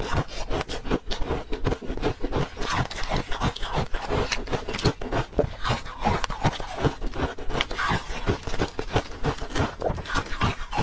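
Thin flakes of ice being chewed close to the microphone: a dense, continuous crunching of many small cracks a second.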